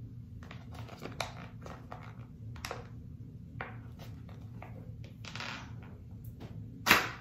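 A sheet face mask packet being opened by hand: a string of small crinkles and clicks, a longer rustle about five seconds in, and a sharp tear near the end, the loudest sound.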